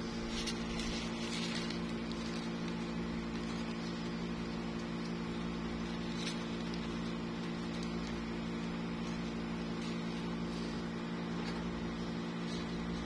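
Steady low machine hum, like a room fan or appliance motor running, with a few faint rustles of tissue paper.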